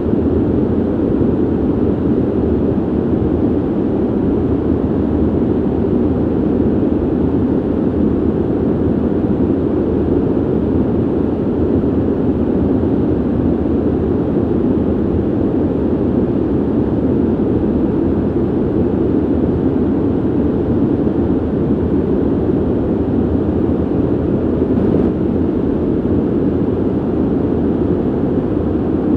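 Steady ventilation noise: an even, deep rushing of air with no pitch or rhythm, unchanging throughout.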